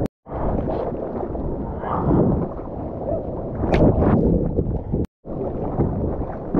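Seawater sloshing and rushing around a mouth-mounted GoPro in the surf, with wind buffeting the microphone and a sharper splash about halfway through. The sound cuts out briefly twice.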